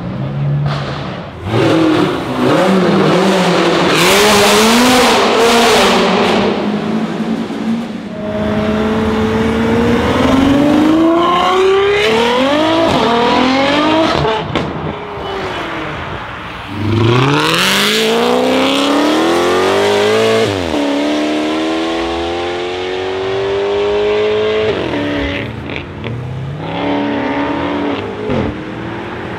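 Several modified performance cars accelerating hard one after another, among them a Ferrari F12's V12 around the middle. Each engine note climbs steeply in pitch and drops back sharply at the gear changes. A loud, harsh burst of noise fills the stretch from about two to seven seconds in.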